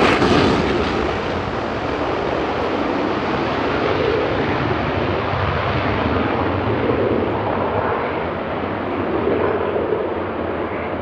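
Saab JAS 39 Gripen C fighter's Volvo RM12 jet engine in afterburner as the jet flies away, its roar with an uneven rumble growing fainter and duller as it recedes.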